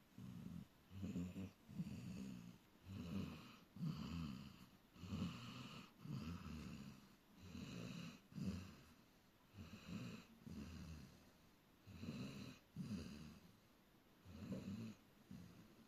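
A sleeping dog snoring: short, rasping snores in an even rhythm, roughly one a second.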